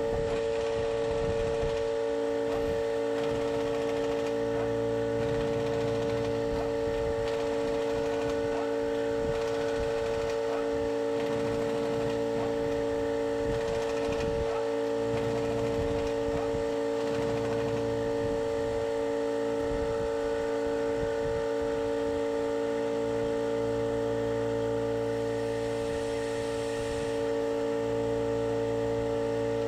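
A machine running steadily, with a constant hum made of several held tones and some low rumble underneath.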